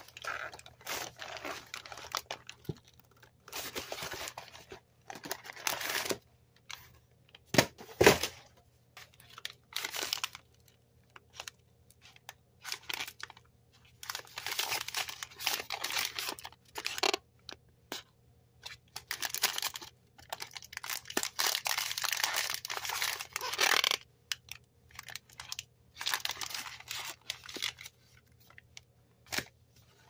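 A cardboard carton of individually wrapped granola bars handled by gloved hands: irregular bursts of rustling wrapper plastic and scraping cardboard, with a sharp double knock about eight seconds in.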